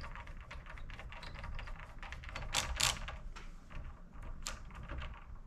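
Rapid, irregular small clicks and ticks of a screwdriver turning the tiny retaining screw that holds an M.2 SSD in a PS5's expansion slot, with a few sharper clicks about two and a half, three and four and a half seconds in.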